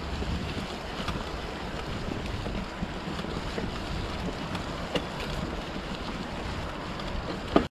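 Wind noise on the camera microphone over a mountain bike rolling along a dirt trail covered in dry fallen leaves, with a few sharp knocks from the bike over the ground; a louder knock comes near the end, then the sound cuts off suddenly.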